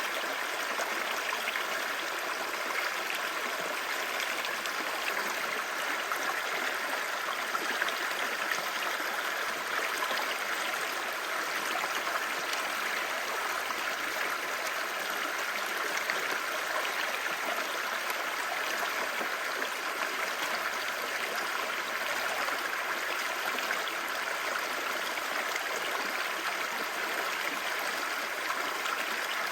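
Clear shallow stream babbling over rocks, a steady, even rush of water.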